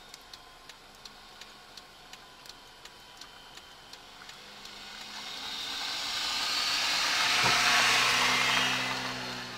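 A car drives up and passes close alongside: tyre and engine noise swells over several seconds to a peak about eight seconds in, then eases off. Under it a faint, steady ticking runs at nearly three ticks a second.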